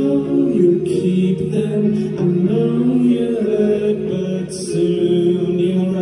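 Live rock band in a quiet, stripped-back passage: sustained singing over light accompaniment, with no drums or bass.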